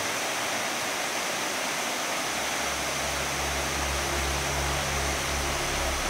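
Waterfall rushing: a steady hiss of falling water. About two seconds in, a low pulsing rumble joins underneath.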